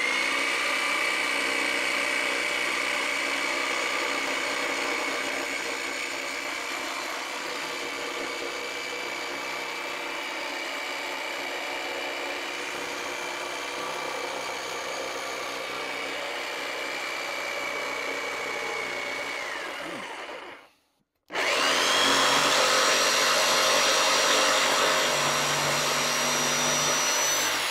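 Corded DeWalt 317 variable-speed orbital jigsaw cutting through an oak board, its motor whine running steadily with the blade chattering in the wood. It winds down about twenty seconds in. After a moment's silence it runs again at a higher pitch and louder, and winds down at the end.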